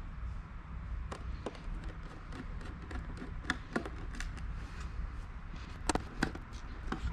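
Irregular light clicks and taps of small hardware being handled, over a steady low hum, with a cluster of sharper clicks about six seconds in.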